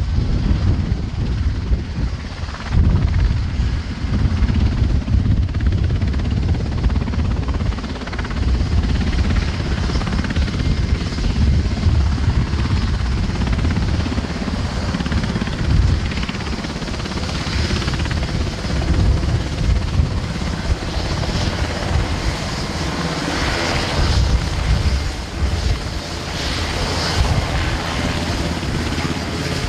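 Sikorsky CH-148 Cyclone helicopter taxiing on the ground with its rotors turning: a steady, loud mix of rotor beat and twin-turboshaft engine noise. There are several bursts of brighter hiss in the second half.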